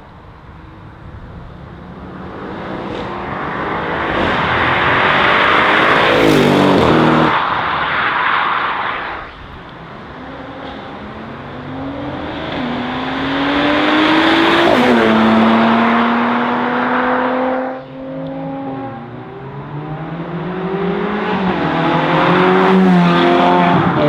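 Sports cars accelerating hard past, three passes in a row. Each engine note climbs through the revs, drops at an upshift, and falls away in pitch as the car goes by.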